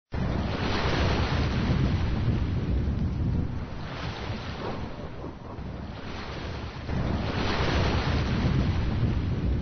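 Sea waves washing up a beach in surges, with wind buffeting the microphone as a low rumble. The surf is loud for the first few seconds, eases in the middle, and swells again about seven seconds in.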